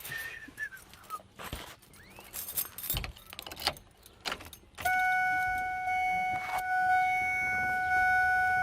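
Keys rattling and clicking in the truck's ignition, then a steady pitched tone starts suddenly about five seconds in and holds, louder than anything before it.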